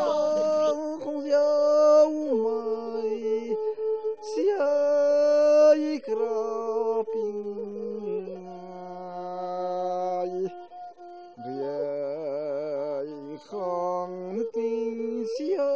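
Singing: voices hold long notes that step from pitch to pitch, with a wavering, vibrato-like note a little past the middle.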